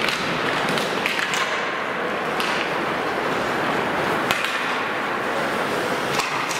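Ice hockey play: a steady scraping hiss of skate blades on the ice, broken by about five sharp clacks of sticks and puck, one of them soon after the faceoff.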